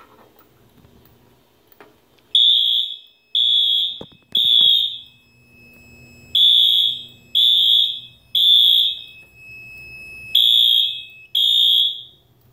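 Fire alarm sounder beeping in the temporal-3 (code 3) evacuation pattern: three loud, high beeps, a pause, three more, a pause, then two. A fainter steady high tone runs beneath, and there are a couple of knocks about two and four seconds in. The alarm is set off by a smoke detector on the alarm system.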